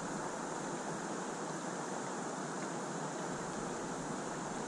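Steady outdoor wind and water noise around a small inflatable fishing pontoon on a rippled pond, with no distinct events.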